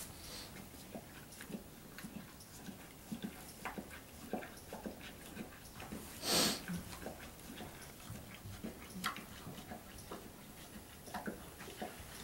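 Scattered soft rustles and crackles of straw bedding as a mare and her newborn foal shift over it, with one short, loud breathy blow of air, like a horse blowing through its nostrils, a little over six seconds in.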